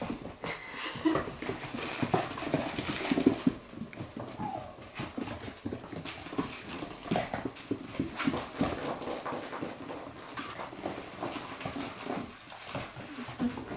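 Six-week-old Labradoodle puppies playing on a hard floor: a busy run of small clicks and knocks from paws and toys, with short puppy whimpers and yips mixed in.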